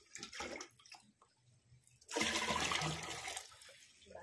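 Water poured from a tin into a large cooking pot (degcha) to fill it. There are a few short splashes near the start, then a full gushing pour about two seconds in that tails off over a second or so.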